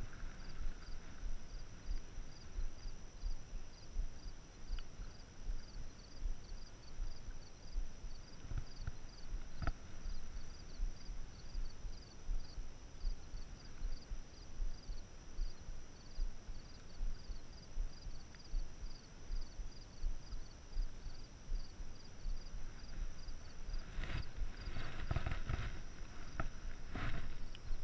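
Outdoor wind and handling noise on a head-mounted action camera: irregular low thumps, with a faint, evenly repeating high ticking over a steady high tone. Louder rustling and crunching comes in near the end as the camera wearer moves on the rocky shore.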